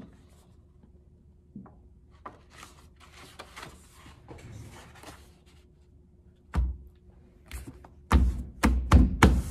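A sheet of paper being folded over by hand: soft rustling, then a thump about two-thirds of the way through and a quick run of louder thumps near the end as hands press the fold flat against a table.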